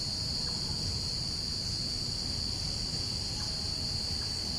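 Night-time chorus of crickets: a steady, unbroken high-pitched trill, over a low background rumble.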